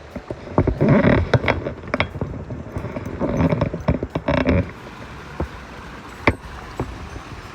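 Irregular knocks, clicks and rustling of gear being handled close to the microphone, dense for the first few seconds, then a few single sharp clicks over a quieter steady background.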